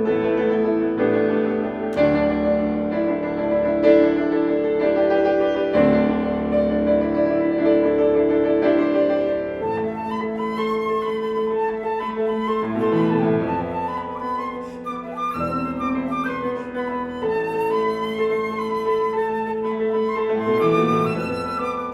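Flute and piano playing a contemporary classical duo. The piano plays sustained chords alone at first, and about halfway through the flute enters with a wavering melody over the piano.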